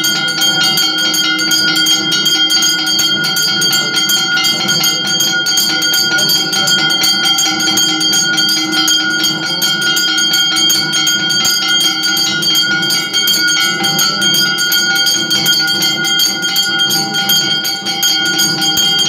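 Temple bells rung rapidly and without pause during aarti, the quick strikes blending into a steady metallic ringing.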